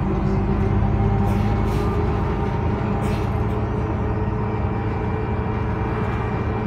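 Iveco Urbanway 12 city bus heard from inside the passenger cabin while driving: a steady low engine hum and road rumble, with a few faint ticks of interior rattle.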